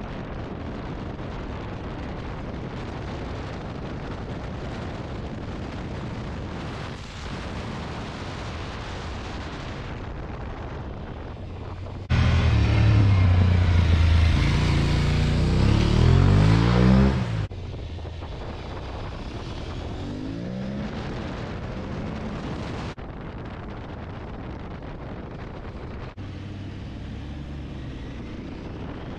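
Aprilia Tuareg 660 parallel-twin engine and wind rush heard from the rider's seat at road speed. About 12 s in, a louder stretch of some five seconds: the bike's engine note rising in repeated steps as it accelerates up through the gears past the roadside, before the onboard wind-and-engine sound resumes.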